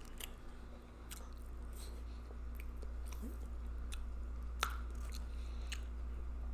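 Close-miked chewing with scattered wet mouth smacks and clicks, a sharper smack about two-thirds of the way through, over a steady low hum.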